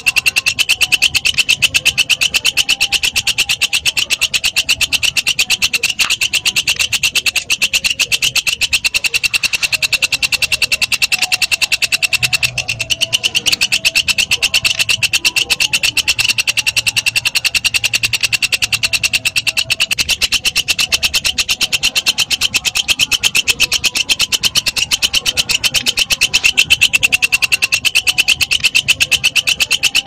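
Walang kecek, a katydid, singing: a loud, steady, very rapid train of high, sharp ticking chirps that does not pause.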